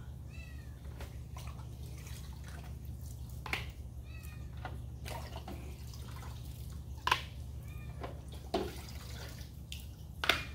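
Plastic filter media baskets from a canister filter knocked down one after another on a wet concrete floor, with water dripping off them; the loudest knocks come about seven and ten seconds in. A cat meows briefly three times in the background over a steady low hum.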